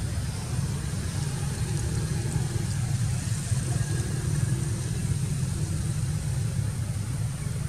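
Steady low outdoor rumble, with faint distant sounds over it.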